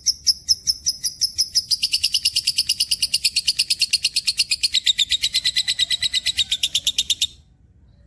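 Cage bird singing a long run of rapidly repeated high chirps, about six a second, that speeds up to about eight or nine a second near two seconds in and then stops abruptly, leaving only faint background for the last second or so.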